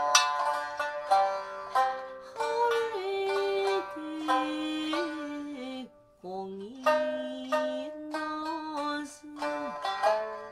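Shamisen plucking a kouta accompaniment. About two seconds in, a woman's voice joins, singing long drawn-out notes that slide between pitches. Both break off briefly near the middle, then the singing and plucking resume.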